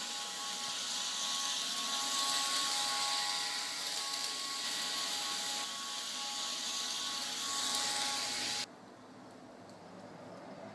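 Heljan O gauge class 47 model locomotive running on its track, a steady high hiss with a faint whine from its motor and roof fans, cutting off suddenly about eight and a half seconds in when the power stops.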